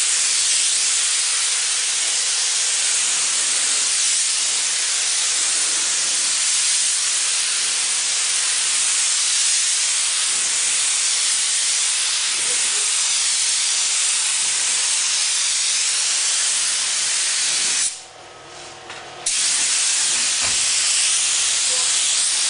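Gravity-feed paint spray gun hissing steadily as compressed air atomises paint. The hiss cuts off about 18 seconds in for just over a second as the trigger is released, then resumes.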